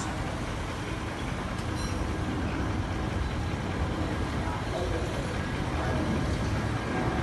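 Steady rumble and rush of an Airbus A330-200F freighter's jet engines, slowly getting louder.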